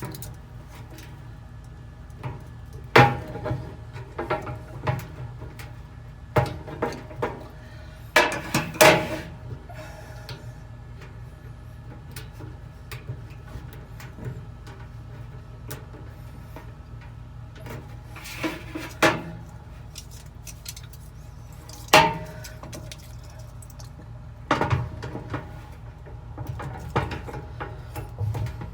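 Scattered metallic clinks and taps of pliers and small steel parts being worked by hand, as a retaining C-clip is fitted onto the shaft of a new dryer drum support roller. They come in short clusters with long pauses between.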